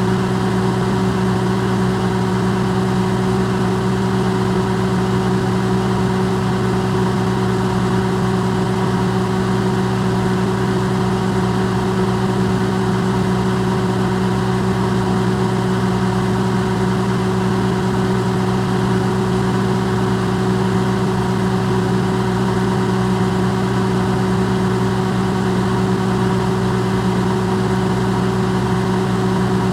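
Electrolux microwave oven running, recorded close up and amplified: a loud, unchanging electrical hum with a fan whir.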